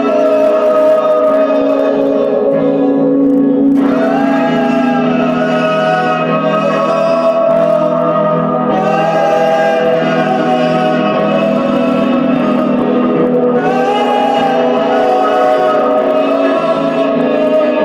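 Music of long, held, choir-like sung tones that bend slowly in pitch, with a new phrase starting every four to five seconds.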